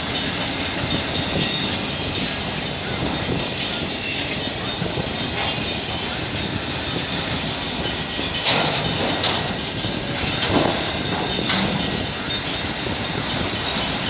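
Freight train cars, autoracks among them, rolling past on the rails: a steady rumble and rattle of wheels and couplings, with a few louder sharp moments in the second half.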